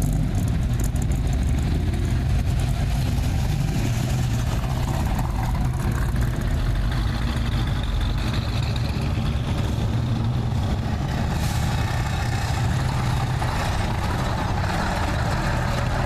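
Engines of classic vehicles driving slowly past, a steady low engine sound: a Shelby Cobra-style roadster first, then a vintage Mack truck.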